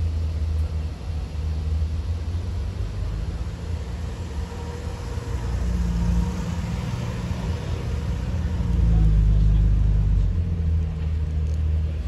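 Nissan Skyline R34's straight-six engine and exhaust running at low revs with a deep rumble as the car rolls past, swelling louder about nine seconds in as it pulls away.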